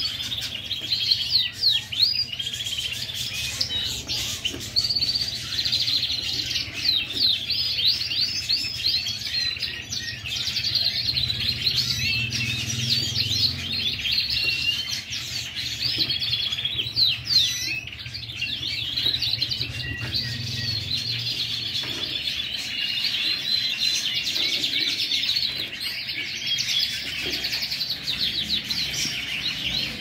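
Caged Gloster canaries singing, a continuous run of quick chirps and rapid trills, over a steady low hum.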